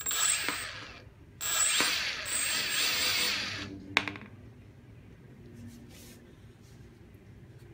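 Small electric motor on an RC foam plane spinning its propeller in two throttle bursts, the first short and the second about two seconds long, each starting with a rising whine. A sharp click follows about four seconds in.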